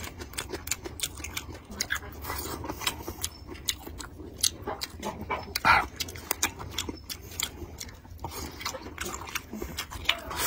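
Close-miked chewing and lip-smacking as a person eats a mouthful of stir-fried vegetables: a steady run of quick wet clicks and smacks, with one louder short sound a little past halfway.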